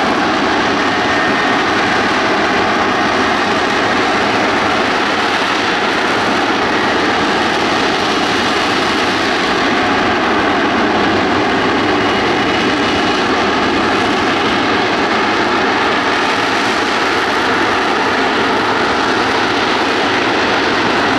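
F-35B Lightning II's Pratt & Whitney F135 jet engine and lift fan running at high power in a hover: a loud, steady rushing noise with a faint steady tone beneath it.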